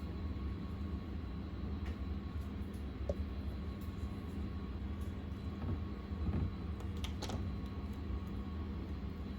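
Steady low hum with thin constant tones, and a few faint soft clicks and squishes of slime being handled, the clearest a little after the seven-second mark.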